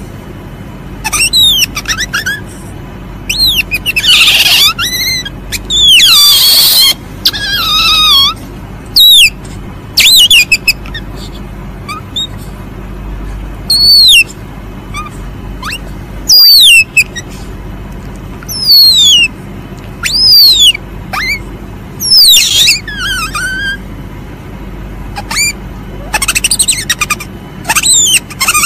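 Asian palm civet (musang) calling: short high-pitched cries that sweep up and down in pitch, coming irregularly every second or two. Two harsher, noisier cries come about four and six seconds in. A steady low hum lies underneath.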